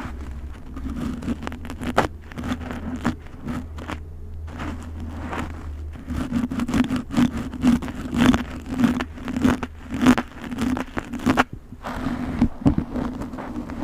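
Groceries being put into a refrigerator: a run of clicks, knocks and scrapes of containers and packaging being set down and moved, with some rustling, over a low hum that fades out about halfway through.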